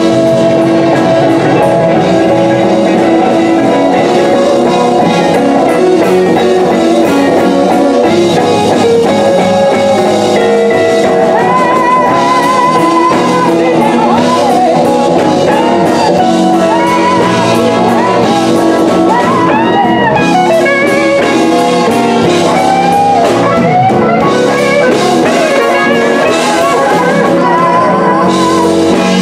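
Live blues band playing a slow blues: electric guitars, bass and drums, with a lead guitar line bending and wavering over the band.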